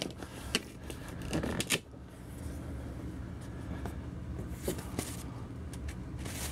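A cardboard collector's box being opened and its tissue paper handled: a cluster of crackles and light clicks in the first two seconds, then a few scattered taps and rustles.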